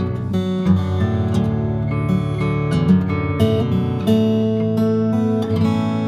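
Baritone acoustic guitar in standard tuning a fourth low (B to B) being strummed, with the chords changing every second or two.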